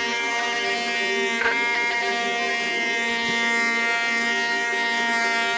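DeWalt 5-inch random orbit sander running steadily with a constant whine, its 120-grit pad working over an oak cabinet door. There is a short knock about a second and a half in.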